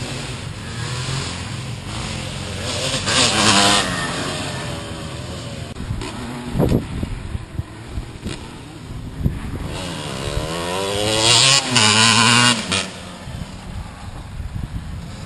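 Motocross dirt bike engine ridden hard from the bike itself, revving up through the gears and dropping back off the throttle. It goes to full revs twice, about three seconds in and again near the end, with short knocks in between.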